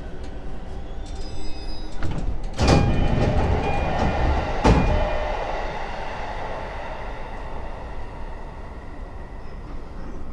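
E231-series commuter train's sliding doors opening at a station stop: a brief high tone, then a sudden thump and rush of noise as the doors slide, ending in a sharp clunk about two seconds later, over a steady low rumble.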